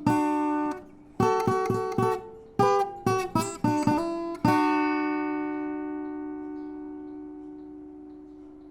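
Acoustic guitar playing the last few strummed and picked chords of a piece, then a final chord about halfway through that is left to ring and slowly fade away.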